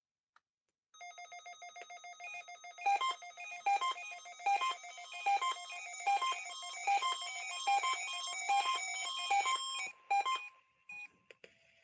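Electronic bell-like melody: sustained chiming tones, then a repeating pattern of short notes about once a second, stopping shortly before the end, followed by faint hiss.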